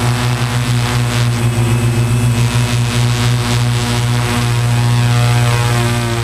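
Tarot T960 hexacopter's six electric motors and propellers hovering low, a steady hum with a slight waver in level as it holds position.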